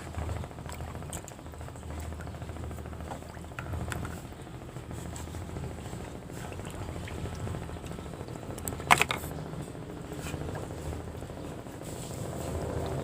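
River water sounds with a steady low hum underneath and scattered small clicks, broken by one sharp knock about nine seconds in.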